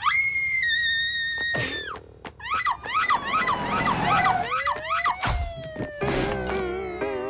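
Cartoon sound effects over music. A loud whistle-like tone is held for under two seconds, followed by a quick run of chirping pitch sweeps. Then comes a long sliding glide that rises and then falls, and a wavering, warbling tone near the end.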